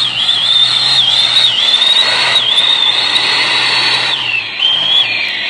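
Land Rover Defender's engine pulling hard at high revs, with a loud high whine from the drivetrain that dips in pitch several times as the load changes.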